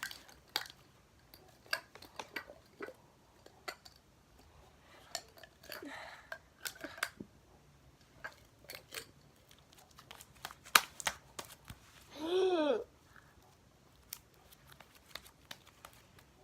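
Slime being squeezed and pulled by hand, giving irregular sticky clicks and pops. A brief pitched squeak that rises then falls comes about twelve seconds in.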